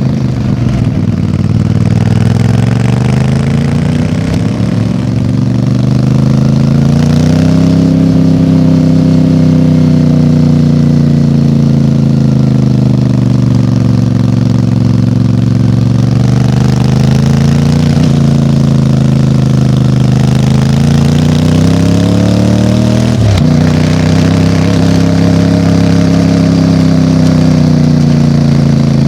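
MT450's engine running through its exhaust, the revs rising and easing off slowly several times, with a brief sharp dip about two-thirds of the way through.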